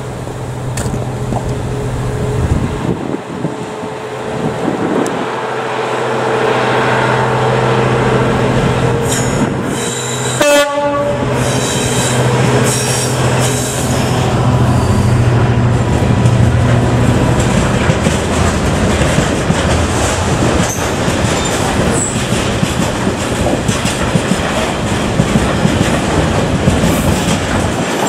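Freightliner Class 66 diesel locomotive, a two-stroke V12, passing with its engine running steadily, then loaded ballast wagons rolling by with a clatter of wheels on the rails. A short horn blast sounds about ten seconds in.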